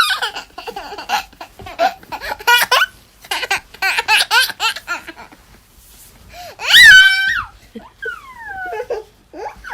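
A 26-month-old toddler laughing: bursts of rapid giggles, a loud high-pitched squeal of laughter about seven seconds in, then falling, sing-song laughing calls.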